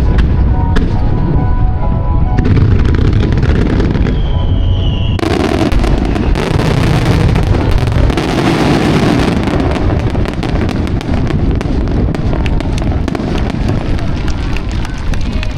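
Aerial fireworks shells bursting with deep booms over music played from the show's loudspeakers; about five seconds in a brief whistle is followed by a dense, continuous run of crackling and bangs from a rapid barrage.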